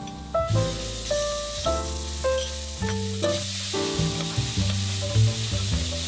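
Red chili barica paste sizzling as it fries in hot oil with shallots in a stainless steel pan, stirred with a metal spatula. A background tune with a stepping melody and bass plays throughout and is the loudest sound.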